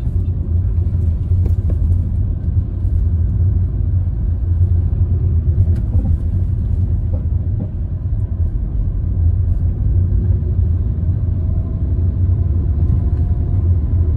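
Steady low rumble of engine and tyre noise inside a Hyundai i20's cabin as it drives along a street.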